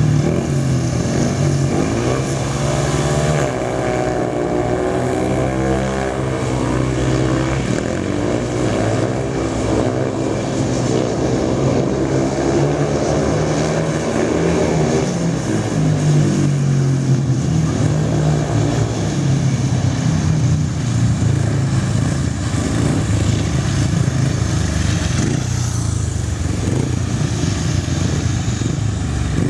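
Several speedway motorcycles racing on a dirt track, their engines revving up and down in pitch again and again as they accelerate and back off.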